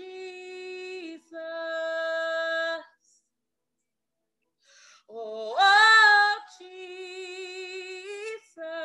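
A woman singing a gospel worship song a cappella, holding long wordless 'oh' notes with vibrato. After a pause of nearly two seconds, a loud note swoops upward, followed by more held, wavering notes.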